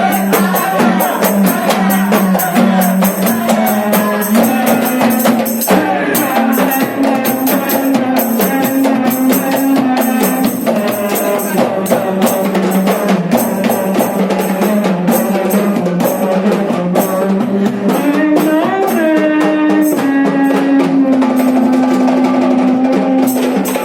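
Music with busy drum and percussion hits under a sustained melody line that slides in pitch about three quarters of the way through.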